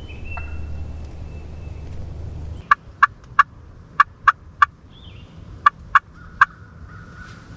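Wild turkey clucking: nine short, sharp notes in three quick groups of three. Low wind rumble on the microphone stops about two and a half seconds in.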